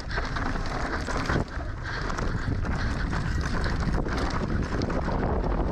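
Wind buffeting the action-camera microphone over a mountain bike descending an enduro trail, with the frame and tyres giving many small knocks and rattles.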